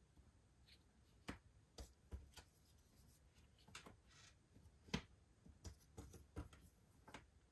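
Cardboard jigsaw puzzle pieces being handled and set down: faint, scattered clicks and taps, about eight of them, the sharpest about five seconds in.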